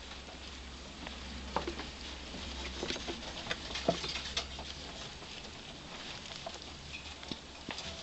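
Pet fancy rats eating from a ceramic bowl in bedding of wood shavings: a run of small, irregular clicks, ticks and rustles, busiest in the first half.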